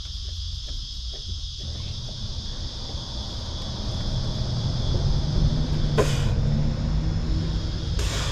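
Insects chirring steadily and high-pitched throughout, while a low rumble with a steady hum swells up through the middle and eases off; two short, sharp noises come near the end, a couple of seconds apart.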